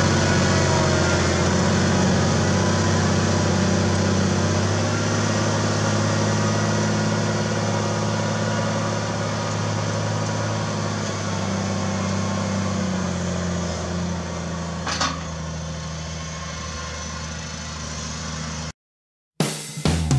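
Zetor Crystal tractor's diesel engine running steadily under load as it pulls a Helti AL 3x70 subsoiler through the soil, fading as the tractor moves away over the last few seconds. Guitar music starts right at the end.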